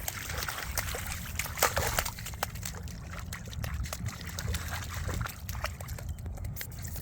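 German shepherds moving through muddy water, their paws splashing and sloshing in a quick run of short splashes that thins out after the first few seconds.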